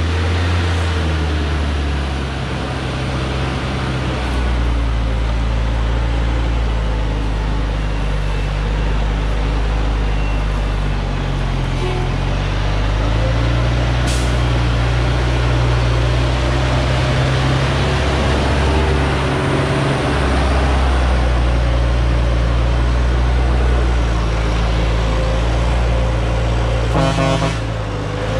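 Diesel engine of a Dongfeng truck heavily loaded with acacia logs, labouring in low gear as it crawls along a rough dirt track, its note rising and falling several times as the throttle changes. A short horn toot near the end.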